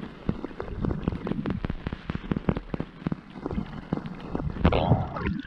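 Underwater sound picked up through a waterproof action camera's housing as it moves through shallow water: irregular clicks and knocks of water against the housing, with a louder rushing splash near the end.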